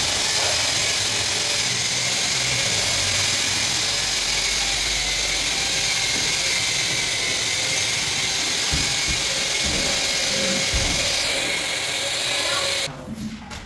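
Handheld power tool running steadily at full speed with a high, hissing whine for about 13 seconds, then cutting off suddenly near the end.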